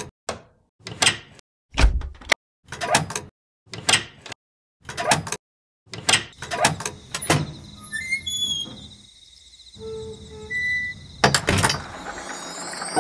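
Edited sound-effect hits: sharp swishing strikes about once a second, each cut off into dead silence. In the second half they give way to scattered short electronic bleeps over a thin steady tone, then a closing double hit.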